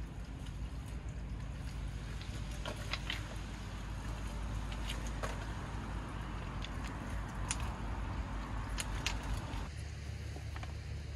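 Seashore ambience: a steady low rumble of wind and surf, with scattered light clicks and clinks of small hard objects. The background changes abruptly near the end.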